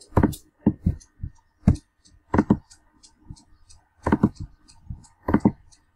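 Computer mouse clicking: about ten sharp clicks, irregularly spaced, some in quick pairs.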